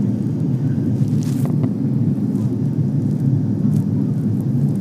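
Steady cabin roar of an Airbus A330 airliner in flight on descent, the engine and airflow noise heard from inside the passenger cabin.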